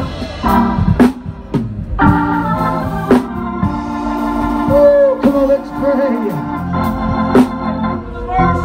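Organ music with held chords, broken by a few sharp percussive hits.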